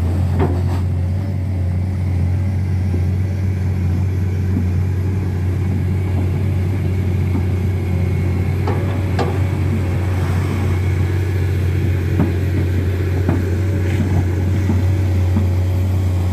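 Komatsu hydraulic excavator's diesel engine running steadily as the machine crawls through deep mud, with a few short knocks scattered through it.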